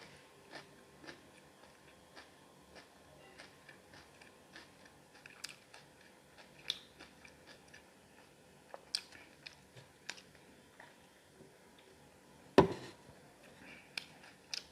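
Close-up chewing and biting on a chicken leg piece, with frequent short wet mouth clicks at an irregular pace. A single louder thump comes near the end.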